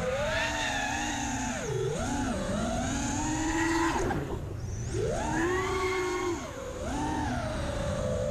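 Racing quadcopter's brushless motors (Emax RS2205S 2300KV) with HQ 5040 tri-blade props whining in flight, the pitch rising and falling with throttle. There is a brief throttle chop and drop in pitch about four seconds in.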